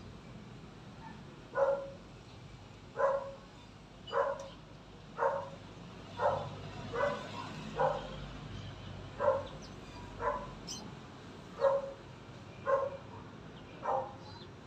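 A dog barking over and over, short single barks about once a second.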